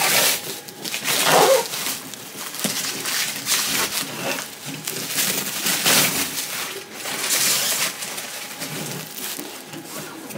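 Black plastic wrapping crinkling and rustling as it is peeled and pulled off a cardboard box, loudest in uneven spells.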